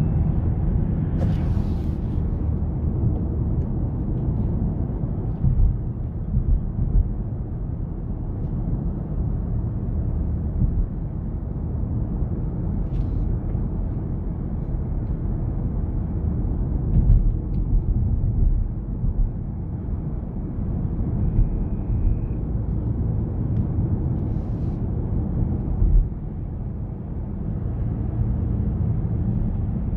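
Steady low rumble of a BMW 530i Touring on the move: tyre and road noise mixed with its 2.0-litre turbo four-cylinder engine running, heard from inside the car, with a few faint clicks.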